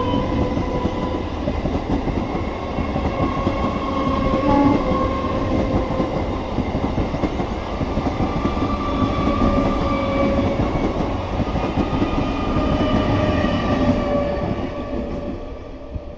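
Electric multiple-unit (EMU) local train passing close by: a steady, loud rumble of wheels and coaches with faint high tones running over it, dying away over the last couple of seconds.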